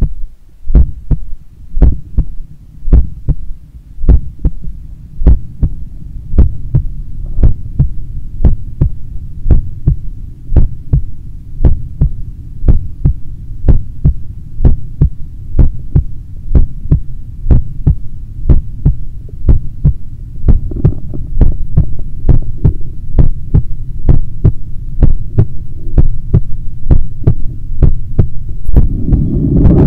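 A person's heartbeat on waking: a steady, even beat of low thuds over a constant low hum, with a brief rustle near the end.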